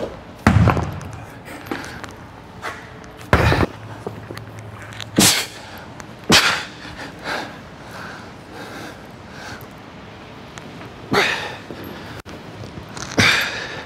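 Heavy rubber-coated dumbbells knocking and thudding as they are lifted off a metal rack and brought into position, with two heavy thuds in the first few seconds. Near the end come two forceful breaths from the lifter straining under the 90-pound weights.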